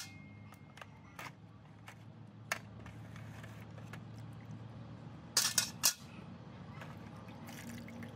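Sharp metal clinks as pliers grip a rusty saw blade and knock it against a steel tray of liquid: a few single clicks early on, then a quick cluster of louder clinks about five and a half seconds in, over a low steady hum.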